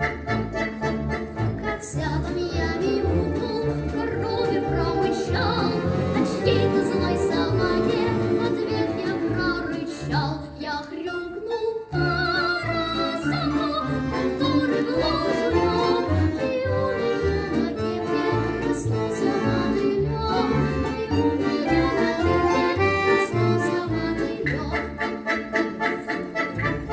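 A young, high, clear voice singing a Russian folk-style song, backed by an orchestra of folk instruments with an accordion prominent over a steady, bouncing bass rhythm. The voice comes in about two seconds in and stops shortly before the end, leaving the instruments alone.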